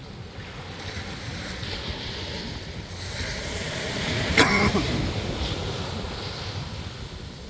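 Ocean surf washing, with wind buffeting the microphone. A short, sharp sound stands out a little past the middle.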